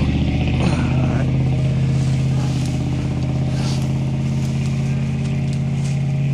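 Pickup truck engine idling steadily close by, a constant low drone. Faint rustling of brush as a deer carcass is dragged out of a ditch.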